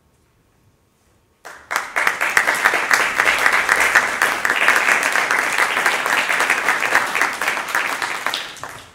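Audience applauding. It starts abruptly about a second and a half in, holds steady, and dies away near the end.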